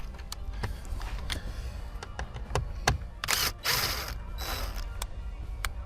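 Scattered clicks and a few short scraping, rustling sounds around the middle, from hand tools and plastic dashboard trim being handled, over a steady low hum.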